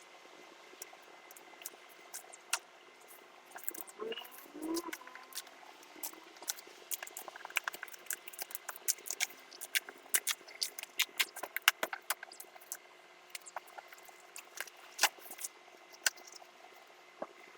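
Small parts and packaging being handled while unpacking a CNC kit: irregular clicks and taps, coming thickest in the middle, with a short squeak about four seconds in.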